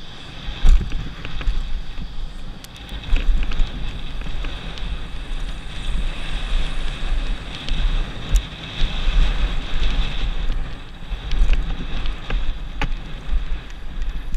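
Wind buffeting the microphone of a helmet camera on a mountain bike descending a dirt and rock trail, with tyre rumble and a few sharp knocks and rattles from the bike over bumps.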